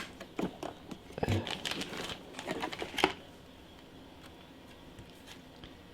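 Small plastic clicks and taps of a DDR4 RAM stick being fitted into a motherboard memory slot and locked in, for about three seconds, then quiet.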